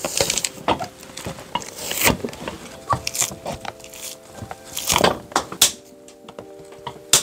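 Hand tools stripping an old leather-soled loafer on a last: a screwdriver prying up the worn sole and heel, and pincers pulling heel nails, with irregular scrapes, creaks and sharp metal clicks. Faint background music with held notes comes in about three seconds in.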